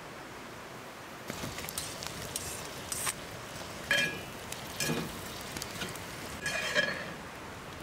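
A metal spatula stirring and turning chopped lamb liver and onions in a metal pan: irregular wet scrapes and a few ringing clinks of metal on metal, starting after about a second.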